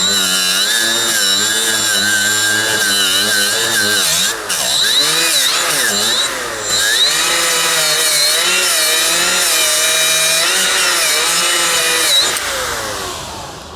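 Milwaukee M12 Fuel cordless angled die grinder running at about 10,000 RPM while cleaning brake caliper bolts. Its whine wavers up and down in pitch as it is pressed against the work, then winds down near the end.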